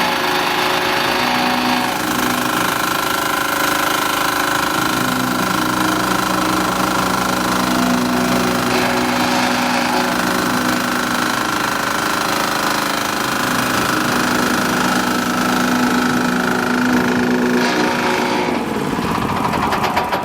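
Fasta FVR600 walk-behind double drum vibratory road roller running with its drums vibrating: a loud, steady mechanical drone with a rattling edge. It shifts slightly in pitch about two seconds in and drops away near the end.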